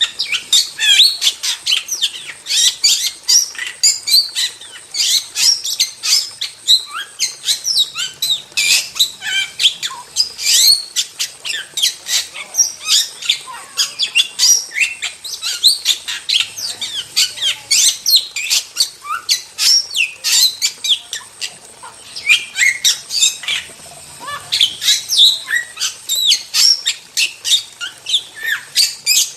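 Starling singing a long, rapid, unbroken run of chattering, squawky and whistled notes, with quick pitch glides.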